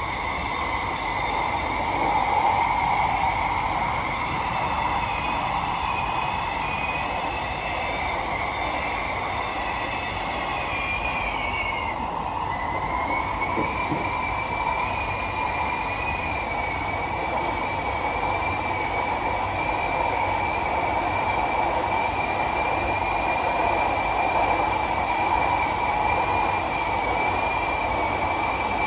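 SMRT C151B train running, heard from inside the carriage: a steady rumble with a loud high-pitched screech held over it. The screech dips in pitch briefly about halfway through, then holds steady again.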